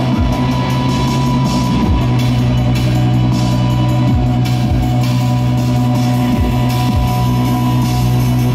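Live rock band playing an instrumental passage: electric guitar and drum kit over a held low bass note, with a steady high sustained note above.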